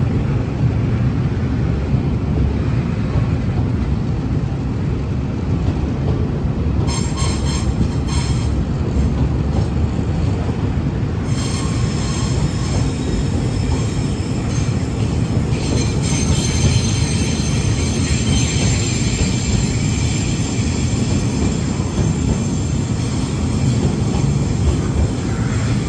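Freight train moving through the station: a steady low rumble of locomotive and wagons, with high-pitched wheel squeal setting in about seven seconds in and continuing from about eleven seconds to near the end.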